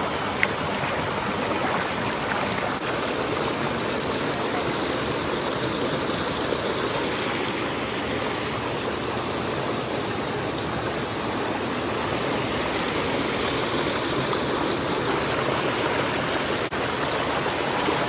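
Shallow rocky stream flowing over rocks and splashing down a small cascade: a steady, even wash of running water.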